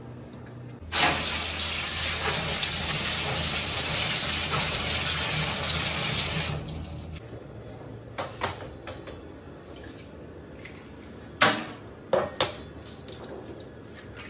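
Tap water running steadily into a sink for about five and a half seconds, then shut off. After it come several short sharp knocks, in two groups a few seconds apart: eggs being cracked on the rim of a stainless steel bowl and dropped in.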